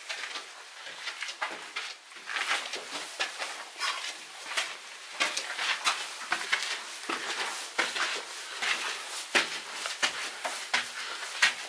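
Footsteps crunching and scraping over debris, with many irregular, closely spaced clicks and crunches.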